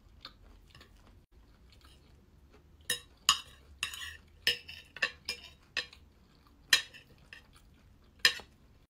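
Metal fork and knife clinking and scraping against a ceramic plate while cutting food. It is quiet at first, then comes a quick run of about ten sharp clinks starting about three seconds in, one of them a longer scrape.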